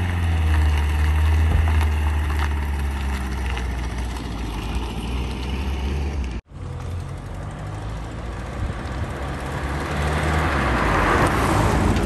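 Fiat 500 towing a motorcycle trailer pulling away and driving off, its engine running with a steady low hum. About six seconds in there is a break, then a car's engine and road noise build up and peak near the end as it passes close.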